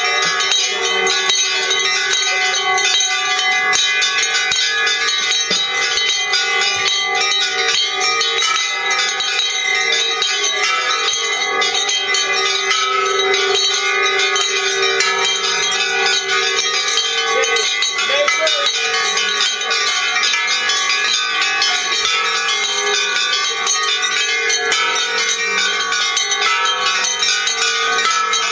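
Many bells rung together by a group, newly built handbells and bells on a bell rack among them: a dense, unbroken wash of overlapping bell tones at many pitches.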